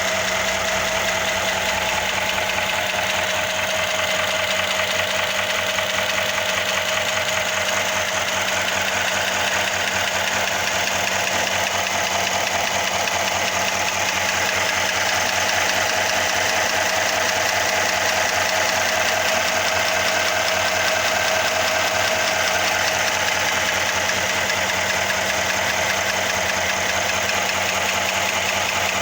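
Mercedes-Benz M278 twin-turbo V8 idling steadily, with a rapid even ticking mixed into its running: the extraneous engine noise the car is being checked for.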